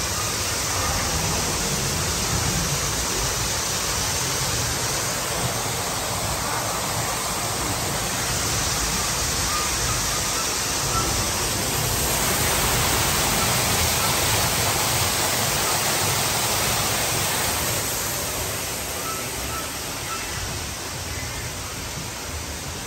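Steady rush of water, like a waterfall or flowing channel, swelling a little past the middle and easing off near the end.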